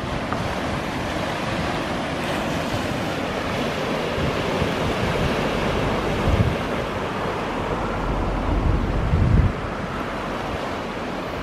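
Surf breaking and washing over shoreline rocks: a steady rushing of sea water. Wind buffets the microphone in low rumbling gusts, strongest about six seconds in and again from about eight to nine seconds.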